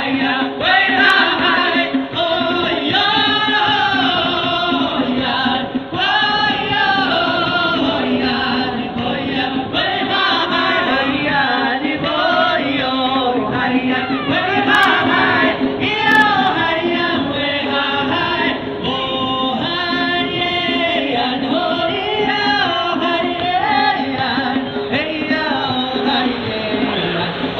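Music with a chorus of voices singing, accompanying a Taiwanese indigenous group dance.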